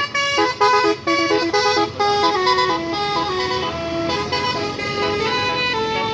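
A bus's Basuri telolet horn, a set of musical air horns, playing a quick melody of short notes. About two seconds in, the notes turn smoother and more continuous.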